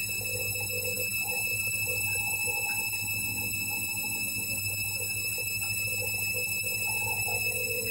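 Candy Grand'O Vita front-loading washing machine running its wash: a steady low hum with a high whine over it, and water moving in the drum.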